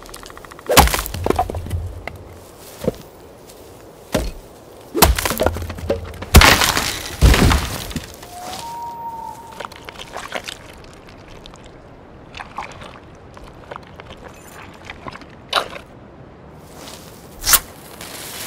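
A series of loud, sharp cracks and heavy thuds, bunched in the first half, then quieter scattered clicks. A brief rising tone comes about nine seconds in, and a single sharp crack sounds near the end.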